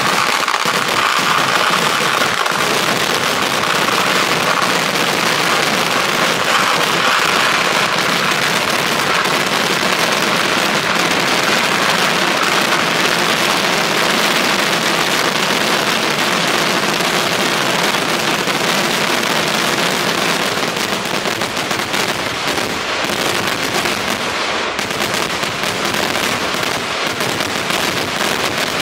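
Kerala temple fireworks (vedikettu): a dense, unbroken barrage of firecrackers going off so fast that the bangs merge into one continuous loud din, easing a little in the last third.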